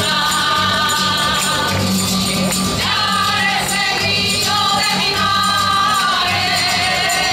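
Women's choir singing an Andalusian folk song together, with rhythmic hand clapping and guitar accompaniment.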